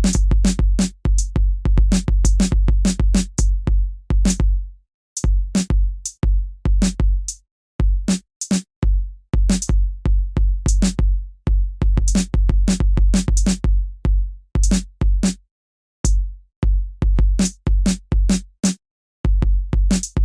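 Background electronic music with a steady drum-machine beat: deep bass kicks and crisp hi-hat hits, with a few brief drop-outs.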